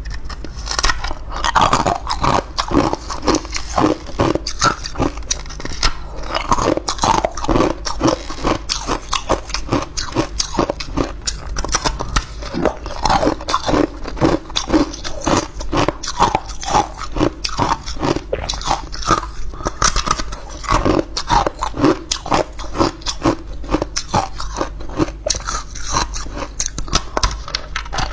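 Ice cubes being bitten and crunched between the teeth: a dense, unbroken run of crunches, several a second.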